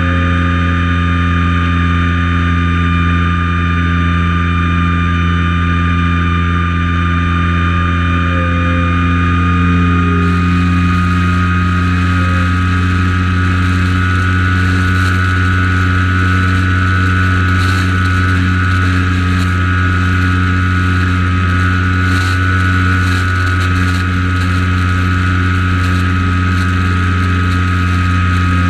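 Small propeller plane's engine and propeller droning steadily in flight, heard from a camera mounted on the aircraft.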